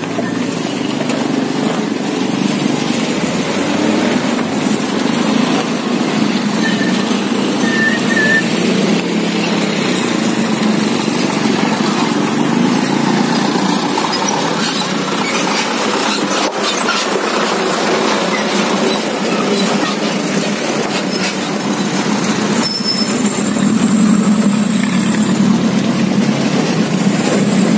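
Road traffic crossing a railway level crossing: motor scooters and a light truck running over the rails, heard as a steady engine-and-tyre rumble that grows a little louder near the end.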